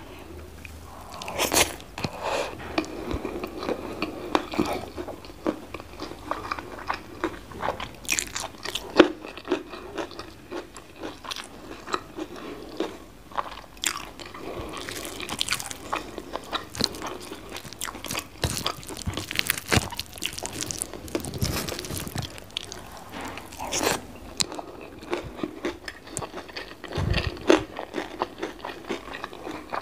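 Close-miked eating: irregular crunchy bites and wet chewing of rice, fried omelette with chili sambal and raw vegetables.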